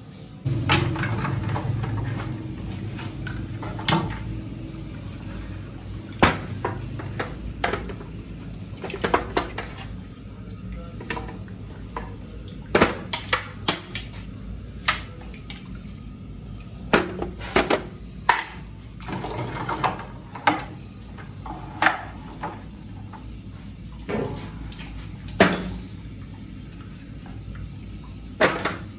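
Irregular clinks and clanks of stainless steel trays, pots and a ladle as cooked goat trotters are lifted out of a boiling pot and dropped into a steel tray. A steady low rumble runs underneath and is loudest for the first couple of seconds.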